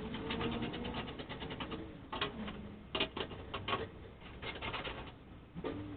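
A cordless drill-driver running in reverse to back out bolts. Its motor whine rises slowly and then drops in pitch, with a run of sharp clicks and metallic rattles in the middle as the bolts come loose.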